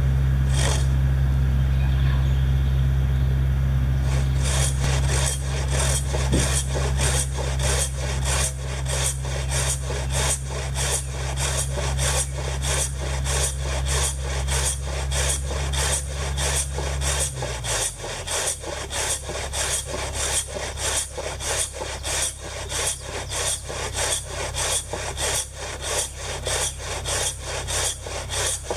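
Maebiki oga, a large Japanese ripsaw, ripping along the grain of an oak beam in steady rasping strokes, about two a second, starting about four seconds in. Under it runs a low steady hum that weakens about two-thirds of the way through.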